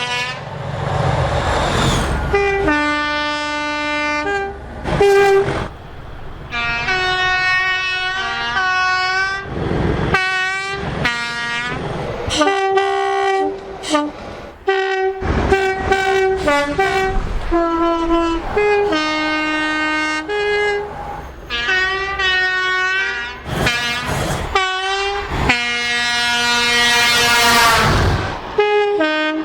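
A string of British train horn blasts, high and low notes alternating in two-tone calls, some short toots and some held for a couple of seconds. The rush of a passing train can be heard near the start and again near the end.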